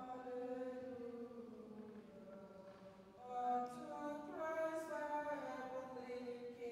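Unaccompanied chant-like singing, slow held notes, with a short break about three seconds in.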